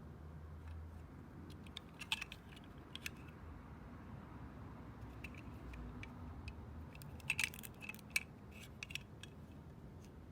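Zippo lighter being handled: scattered light metallic clicks and clinks, with a short cluster of them about seven to nine seconds in.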